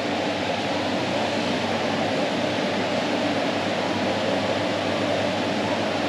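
Steady air-conditioning hum: an even rushing noise with a faint low drone underneath.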